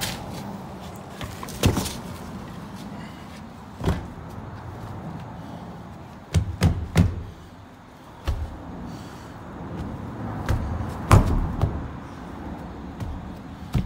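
Footsteps over dirt and loose wooden boards: irregular knocks and thumps, a cluster of three about six and a half seconds in and the loudest about eleven seconds in, over a steady rushing background.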